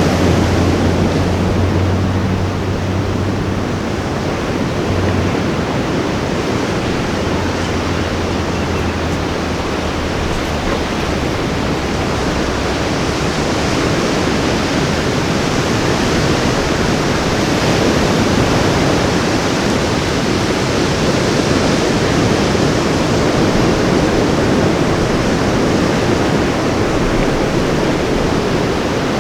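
Ocean surf washing onto a beach in a steady, continuous rush, with a low hum in the first several seconds that fades out.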